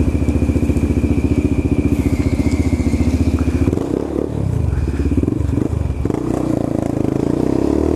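Yamaha Fazer 250's single-cylinder four-stroke engine running at a steady fast beat. About four seconds in it revs unevenly as the bike pulls away, and near the end it climbs in pitch as it accelerates.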